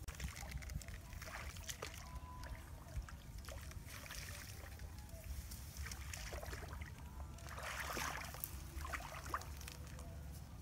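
Light splashing and sloshing of shallow paddy water as people wade, mixed with rustling of rice stalks; a denser patch of splashing and rustling comes about eight seconds in.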